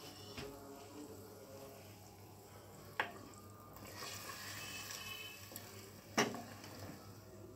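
A wooden spoon stirring a thin meat curry in a clay pot, with two sharp knocks of the spoon against the pot about three seconds apart. A faint steady hum underneath.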